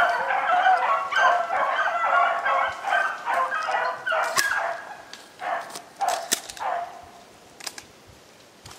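A pack of beagles baying in chorus while running a rabbit on scent. The chorus is dense for the first four seconds or so, then thins to a few scattered bays and fades near the end.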